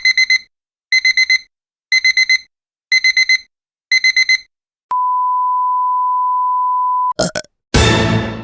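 Digital alarm clock beeping: five clusters of four quick high beeps, one cluster a second. Then a steady censor bleep held for about two seconds, followed by a couple of short blips and a brief harsh burst near the end.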